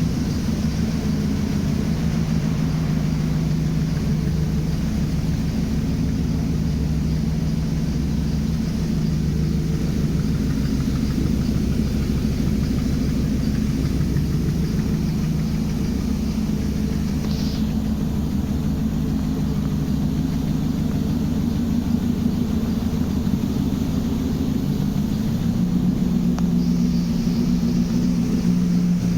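Mercedes W124's M119 V8 idling steadily with a misfire, and a pulley in the accessory drive making an odd noise that the owner puts down to a rusted pulley.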